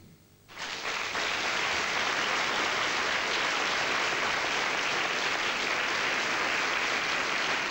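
Studio audience applauding, starting suddenly about half a second in and holding steady.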